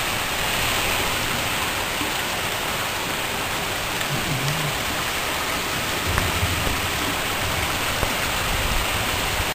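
Heavy rain pouring down in a strong thunderstorm, a steady even hiss. A deeper rumble joins in about six seconds in.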